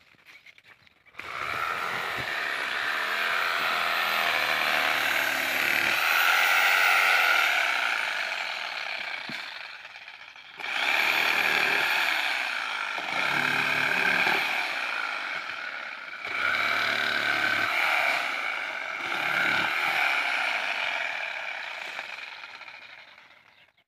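Handheld electric saw cutting through the dry frond bases of a date palm, its motor running in three long spells with short breaks between them.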